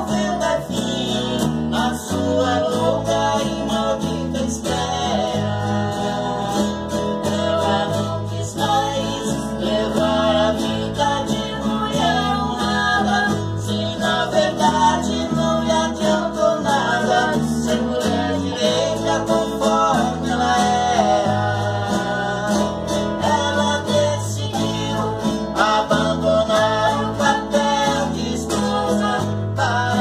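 Two nylon-string acoustic guitars strummed with an electric bass line underneath, while a man and a girl sing a duet over them.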